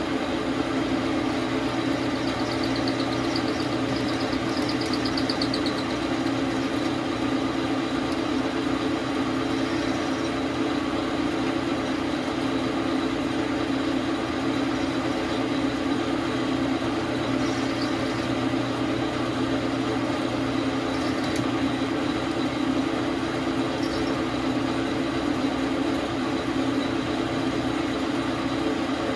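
Dar Sin 12 x 37 manual metal lathe running steadily, a constant motor and gear hum.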